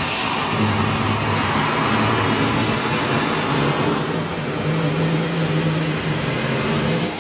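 Steady, loud whirring motor noise with a low hum underneath.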